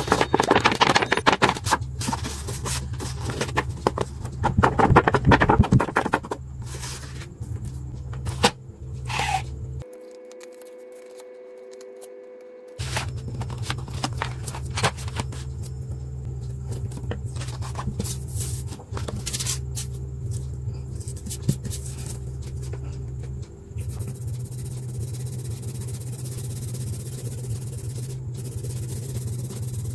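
A sheet of paper being handled and rustled, loudest in the first six seconds. Later come scattered light clicks, then the steady scratch of a colored pencil shading on paper near the end.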